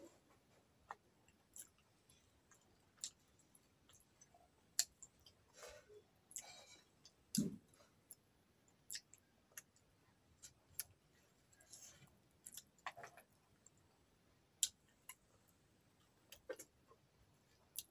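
Mouth clicks and lip smacks of a person chewing food close to the microphone, coming as sharp, irregular clicks about once a second.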